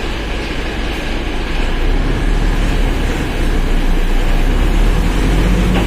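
Mercedes-Benz OF1721 BlueTec 5 bus's diesel engine and drivetrain running under way, a steady low rumble that grows louder about two seconds in.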